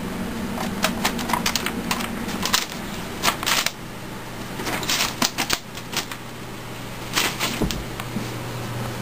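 A Siamese kitten's paws tapping and clicking on a computer keyboard and desk equipment: irregular sharp clicks, some in quick clusters, over a steady low hum.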